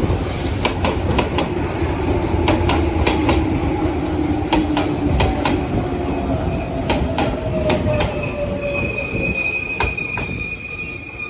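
Izukyu 2100 series resistance-control electric train slowing into a station: motor and gear whine falls steadily in pitch over running rumble, with sharp clicks as the wheels pass rail joints. Over the last few seconds a steady high squeal sets in as it brakes to a stop.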